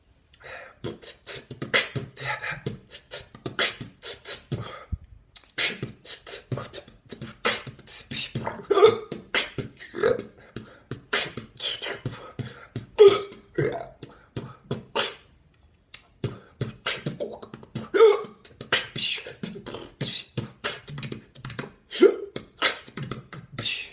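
Mouth beatboxing: a fast run of vocal percussion, with kick, snare and hi-hat clicks, broken by two brief pauses and with a few louder low hits. The beatboxer has hiccups, and the hiccups are worked into the beat.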